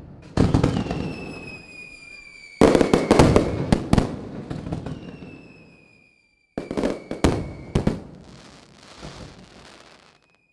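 Fireworks going off in three clusters of sharp bangs, each trailing into crackle, with slowly falling whistles between them. The sound cuts to dead silence abruptly twice, as an edited-in clip would.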